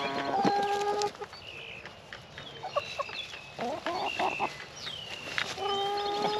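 A flock of laying hens clucking and calling, with a long drawn-out hen call at the start and another near the end, and shorter calls in between.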